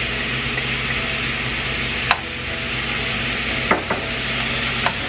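Breakfast sausage and chopped onion sizzling and frying in a hot nonstick skillet while a spatula stirs and breaks up the meat. There are a few sharp taps of the spatula against the pan.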